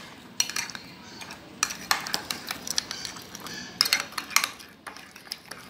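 Metal spoon stirring a thick mayonnaise-and-yogurt sauce in a glass bowl, clinking and scraping against the glass at irregular moments.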